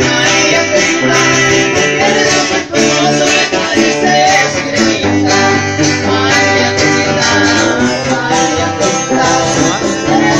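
Grupo sierreño music played live: quick plucked guitar picking over a tuba's bass line, steady and loud.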